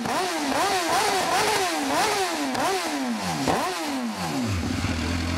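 MV Agusta F4 1000's inline-four engine, fitted with a non-road-legal exhaust, being revved at standstill in quick repeated throttle blips, about two a second. A little after four seconds the revs fall away and it settles into a steady idle.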